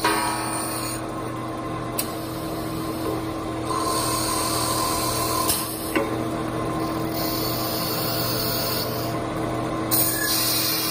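Automatic wood lathe running: a steady motor hum under the rasping of cutters shaving and drilling a spinning wooden blank. A few sharp clicks as the machine cycles through its parts.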